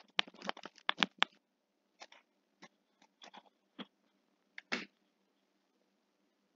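A run of small, sharp clicks and taps, a dozen or so close together in the first second and a half, then a few scattered ones that stop about five seconds in.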